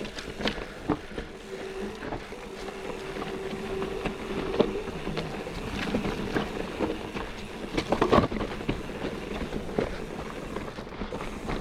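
Mountain bike rattling down a rough, rocky trail: tyre and gravel noise with frequent sharp knocks and clatters of the bike over rocks, the heaviest cluster about eight seconds in. From about a second and a half in, a steady tone holds for a few seconds.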